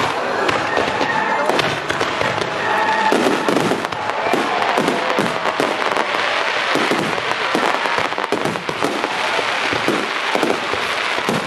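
Fireworks display: aerial shells bursting overhead in a dense, irregular run of bangs and crackles.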